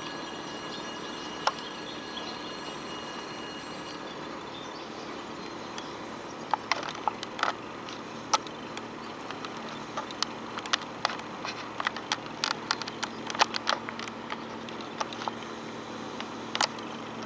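Steady low drone of a passenger boat's engine as it motors slowly out of a canal lock. From about six seconds in, many short, sharp, irregular clicks and ticks sound over it.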